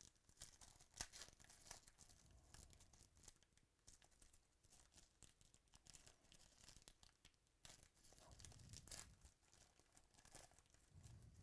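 Faint tearing and crinkling of a foil trading-card pack wrapper being peeled open by hand, a run of quick crackles throughout.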